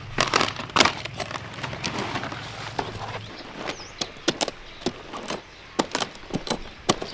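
Irregular sharp knocks and cracks of wood being worked by hand, as in cutting and fitting sticks for a trellis. A low steady hum underneath stops about three seconds in.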